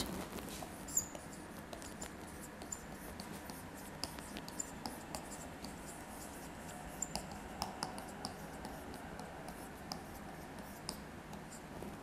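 Marker writing on a whiteboard: faint, scattered squeaks and taps of the tip against the board, over a low room hiss.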